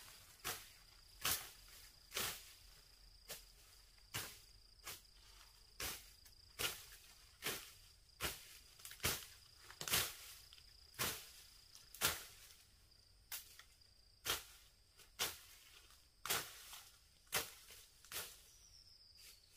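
A steady rhythm of sharp strikes, a little more than one a second, with a thin high insect trill behind that fades about two-thirds of the way through.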